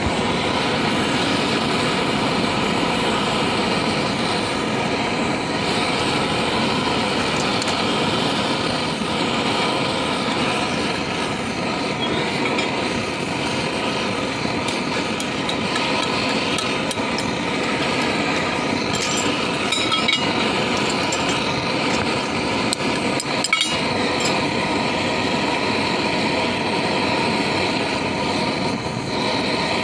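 A steady machine drone, like an engine running, goes on throughout. Over it come a few light metallic clicks and clinks about two-thirds of the way in, as lead-acid battery plates are handled and stacked with a metal tool.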